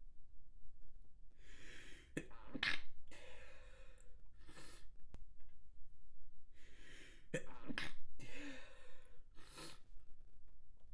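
Stifled human sneezes, induced on purpose. A noisy in-breath leads into two sharp, clipped sneeze bursts, with breathing after them. The same pattern comes again about five seconds later.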